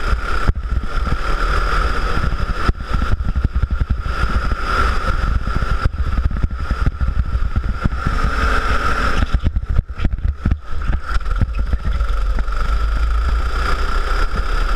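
Go-kart engine running at speed as the kart laps the track, with a steady high engine note, heavy wind rumble on the kart-mounted camera's microphone, and a few brief drops in level.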